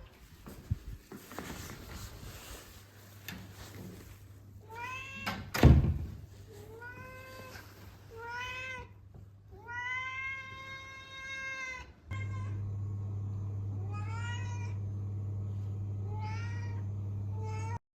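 Domestic cat meowing over and over: short rising-and-falling meows, then one long drawn-out meow midway, with a loud thump just before the meowing picks up. A steady low hum comes in about two-thirds of the way through.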